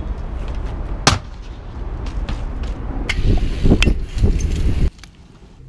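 BMX bikes rolling over pavement with a steady low rumble of tyres and wind on the microphone, broken by sharp knocks and clatters from the bikes; the loudest crack comes about a second in, with a run of knocks near the end before the rumble drops away.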